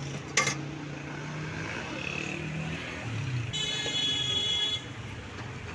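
Street traffic running in the background, with a sharp knock about half a second in. A vehicle horn sounds for just over a second near the middle.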